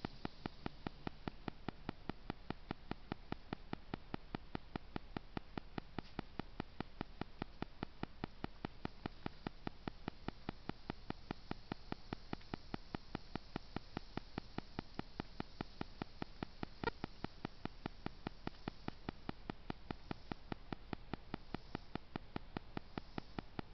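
Trail camera's own recording noise: a steady faint hiss with an even ticking, about five ticks a second, and one louder click about 17 seconds in.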